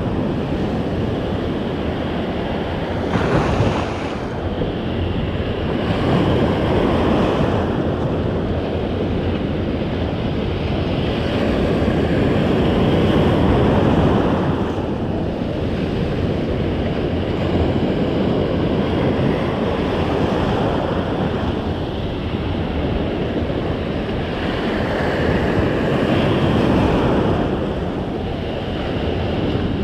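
Ocean surf breaking and washing in close by, swelling and easing every few seconds, with wind buffeting the microphone.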